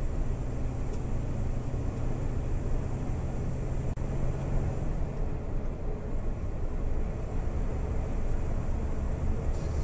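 Steady drone of a lorry's engine and road noise at motorway speed, heard inside the cab, with a low hum that fades out about halfway through.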